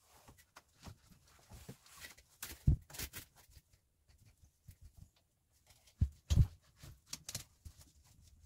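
Irregular knocks, clunks and rustling from hand work, with a heavy thump about three seconds in and two more about six seconds in.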